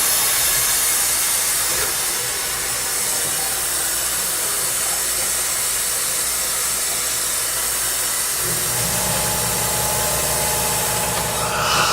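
Dental suction tool hissing steadily with rushing air. About eight seconds in, a low buzzing hum joins it.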